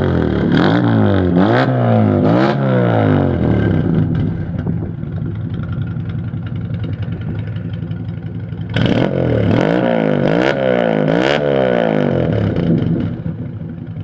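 Lada VAZ 2106 four-cylinder petrol engine revved in quick blips, about one a second, for the first few seconds. It drops back to a steady idle, is blipped again from about nine seconds in, and settles to idle near the end.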